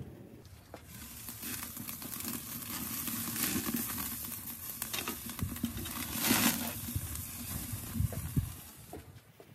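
Ribeye steaks sizzling as they sear on a hot cast iron grate over lump charcoal, at about 600°F, with scattered pops and crackles from the fire. The sizzle swells to its loudest around six seconds in.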